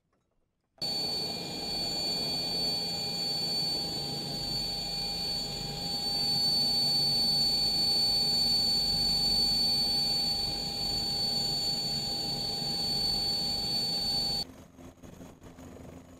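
Eurocopter Tiger helicopter heard from inside the cockpit: a steady high turbine and gearbox whine with several fixed tones over a rumble. It starts suddenly about a second in and cuts off abruptly near the end.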